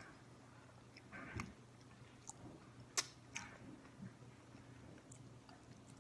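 Close-up eating sounds: quiet chewing of a mouthful of oatmeal, with scattered short sharp clicks, the loudest about three seconds in.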